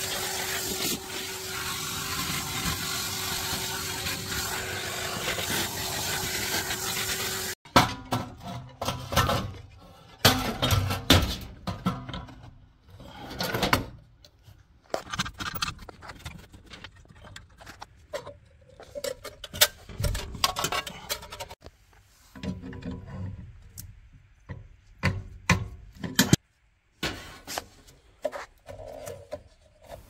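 A vacuum cleaner running steadily as it sucks dust out of an old boiler's burner compartment, stopping abruptly about seven and a half seconds in. After that, scattered clicks, knocks and rattles from handling metal fittings and pipework.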